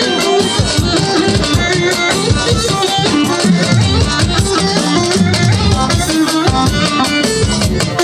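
Loud instrumental music with a steady beat, drums and rattling percussion.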